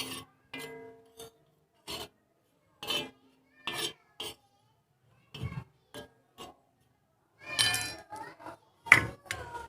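Metal kitchen utensil clinking against an iron tawa griddle as pieces of ginger are turned over: a series of irregular separate clinks and knocks, some with a brief metallic ring.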